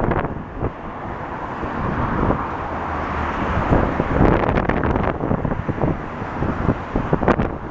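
Wind buffeting the microphone over a steady rumble of passing vehicles, the rumble swelling a few seconds in.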